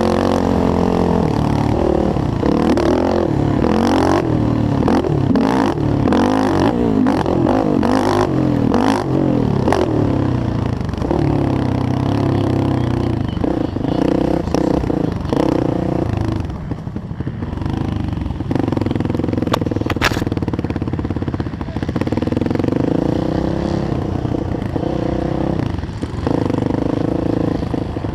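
Yamaha YFZ450R racing quad's single-cylinder four-stroke engine revving up and down as it is ridden hard, with clattering knocks from the chassis and track in the first half. The engine eases off briefly past the middle, then runs on at a steadier pitch.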